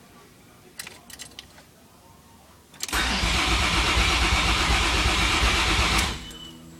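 A few light clicks, then a vehicle's starter motor cranks the engine loudly for about three seconds and stops abruptly.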